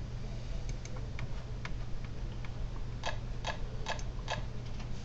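Light scattered clicks, then four evenly spaced sharper clicks a little under half a second apart, over a steady low hum.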